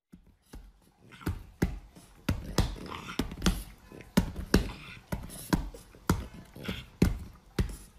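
A white French bulldog's paws slapping at a person's hand on a leather sofa in play: a string of sharp slaps and taps, irregular, about two a second.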